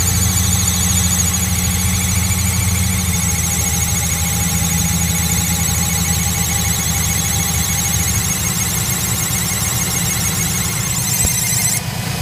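Engine idling with a high-pitched, wavering whine over it; the whine cuts off suddenly near the end, leaving the engine running.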